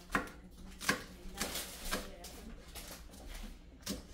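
Kitchen knife slicing a green chili into rings on a plastic cutting board: short, sharp taps of the blade on the board, about two a second.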